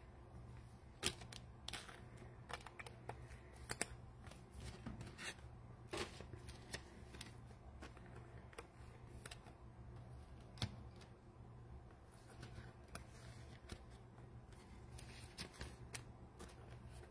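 Faint, irregular small clicks and light taps, a few each second at most, over a low steady hum.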